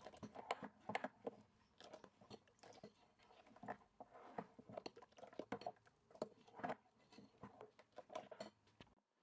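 Metal ladle stirring thin cocoa cake batter in a glass bowl: quiet, irregular clinks and scrapes of the ladle against the glass, several a second, with soft sloshing of the batter. It stops shortly before the end.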